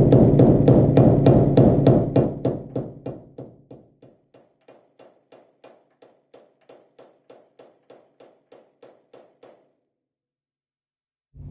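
A steady series of sharp, ringing taps, about three a second and very evenly spaced, under a loud sustained sound that fades away over the first few seconds. The taps stop a little before the end, leaving dead silence.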